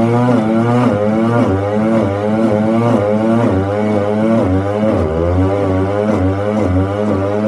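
Small walk-behind stump grinder running under load, its cutter wheel grinding into a tree stump. The engine note holds steady but wavers in a regular rhythm, about twice a second, as the cutter bites.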